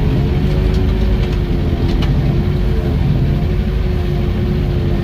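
Vehicle engine running steadily while driving slowly through snow, heard from inside the cab, with a few faint clicks.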